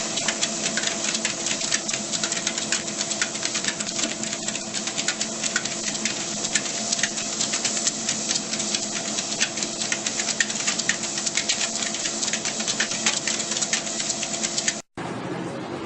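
A small machine runs steadily, its hum held at several fixed pitches under fast, continuous clicking. It cuts off abruptly near the end and is followed by a steady hiss.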